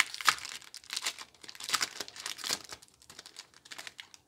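Foil wrapper of a Pokémon GO trading card booster pack crinkling and tearing as it is ripped open by hand. The crackling comes in uneven bursts, loudest at the start and around the middle, and dies away near the end.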